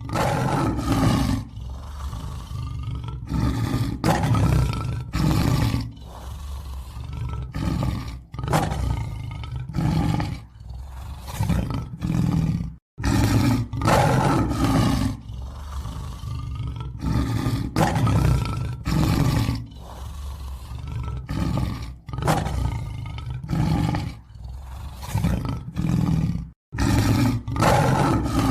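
Lion roaring sound effect, billed as an American lion: a string of deep, repeated roars and grunts, broken twice by a brief silence, about 13 and 27 seconds in, where the recording starts over.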